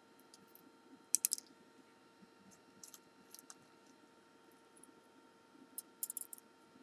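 Light metallic clicks and taps of pinning tweezers, pins and a spring against a small pin-tumbler lock cylinder being repinned: scattered clusters, the loudest about a second in and more near the end.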